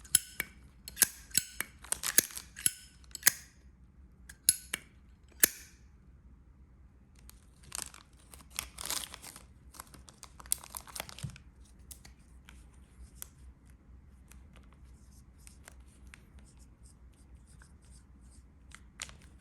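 Handling of a Zippo lighter and its packaging: a run of sharp metallic clicks over the first few seconds, then rustling and crinkling around the middle, fading to faint scattered ticks.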